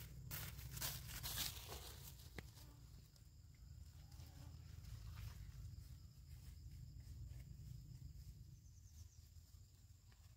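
Leafy rustling as a woven bamboo basket full of squash greens is shouldered, loudest in the first two seconds, then faint footsteps through grass. Insects chirr steadily throughout.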